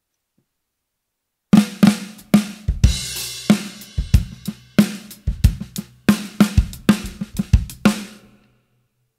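Drum-kit groove of kick drum, cymbals and a low-tuned 14x6.5 Gretsch Full Range walnut snare muffled by paper laid on its head, giving a low, muffled snare sound. It starts about a second and a half in and ends with a last hit about a second before the end, then rings out.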